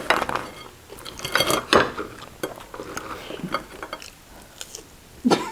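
Cutlery clinking and scraping against a plate during a meal, in scattered separate strikes, the loudest about a second and a half in and one more near the end.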